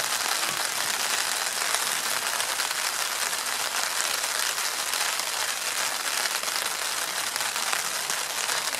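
Food sizzling on a hot grill: a steady crackling hiss that neither rises nor falls.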